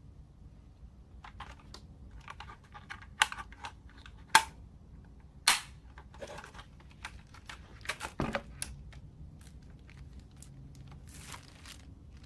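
A keyboard and its packaging being handled: scattered clicks and crinkling, with three sharp knocks a little over a second apart and a cluster of clicks a few seconds later.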